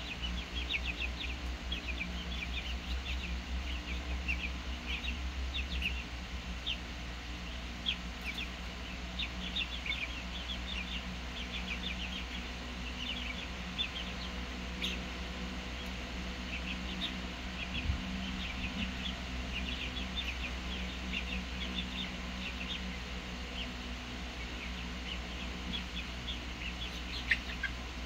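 A flock of young chickens peeping, many short high chirps coming in scattered runs, over a steady low hum.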